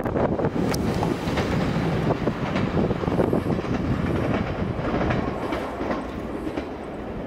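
JR Shikoku 2700 series diesel limited express train running through the station and away, with wheels clacking over the rail joints in the first second. Its rumble then fades gradually toward the end.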